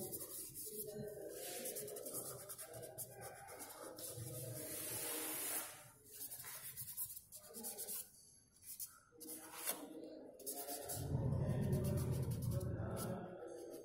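Charcoal rubbing and scratching on sketchbook paper in short, irregular strokes as a portrait is worked over.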